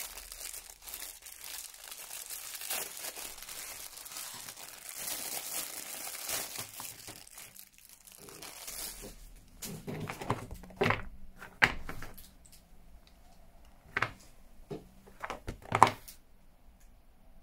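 Clear plastic film crinkling and rustling as it is pulled off a rubber sink splash mat. From about ten seconds in, the rustling gives way to a few separate taps and knocks as the mat is handled and laid down.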